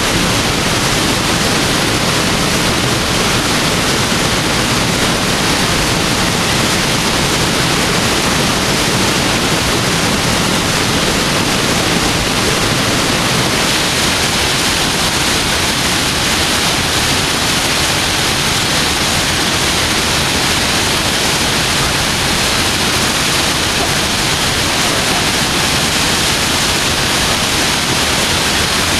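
Lake Creek Falls, a waterfall, pouring into a deep plunge pool, heard close up as a loud, steady rush of falling water.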